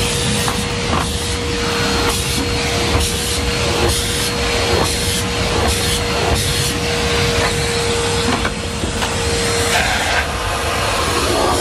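Numatic Henry Pet cylinder vacuum cleaner running with a steady whine while its nozzle is worked back and forth over carpet in quick repeated strokes. The whine drops out near the end while the suction noise goes on.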